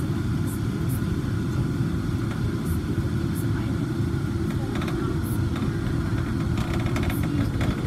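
Von Roll Mk III monorail car running along its guideway, heard from inside the cabin: a steady low rumble with a fainter steady hum above it, and light clicking near the end.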